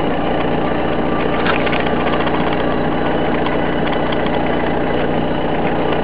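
A steady engine hum at an unchanging pitch, like a motor idling.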